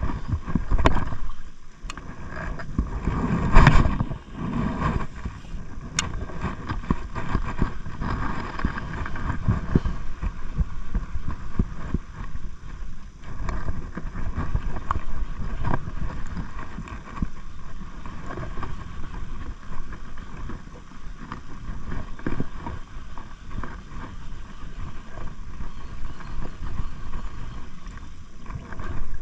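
Wind buffeting the microphone, rising and falling in gusts, loudest about three and a half seconds in, with irregular small knocks.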